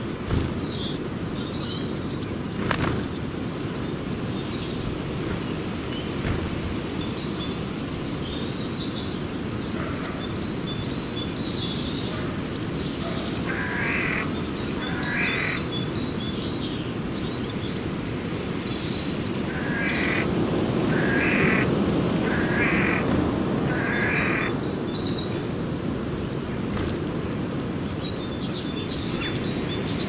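A flock of birds at a feeding frenzy: two runs of four or five evenly spaced calls, one in the middle and one a few seconds later, among short fast trains of high chirps, over a steady low background noise.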